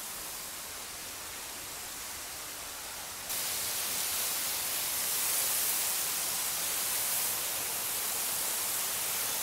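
Steady rush of a waterfall, water pouring down a rock face into a pool. About three seconds in it suddenly becomes louder and hissier.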